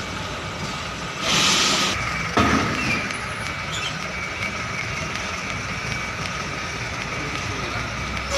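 Heavy diesel truck engines idling steadily, with a loud hiss about a second in and a single knock shortly after.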